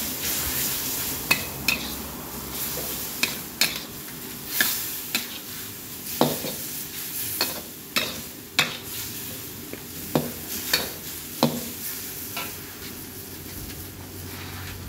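Metal spatula scraping and clinking against a metal wok in irregular strokes, roughly once a second, as beef is stir-fried in its sauce, with a steady sizzle underneath.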